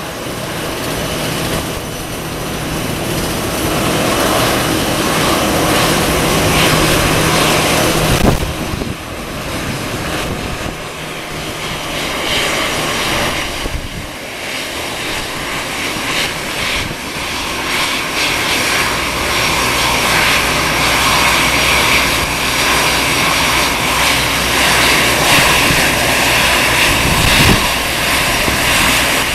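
Airbus A320-200 twin jet engines running at taxi power as the airliner taxis in: a steady loud rush with a high whine, which dips briefly about eight seconds in and then grows stronger as the aircraft turns toward the listener.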